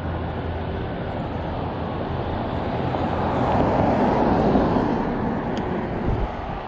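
A car driving past close by, its tyre and engine noise swelling to a peak about four seconds in and then fading, over steady traffic rumble.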